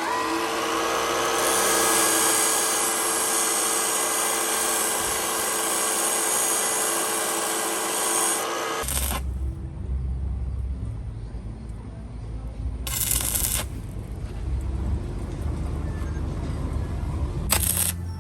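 An electric power tool runs steadily at a constant pitch with a high hiss, then stops abruptly about nine seconds in. After it stops there is a low rumble, broken by a couple of brief noisy bursts.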